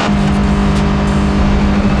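Rally car engine held at a steady high rev on launch control, ready to launch, with sharp crackles from the exhaust.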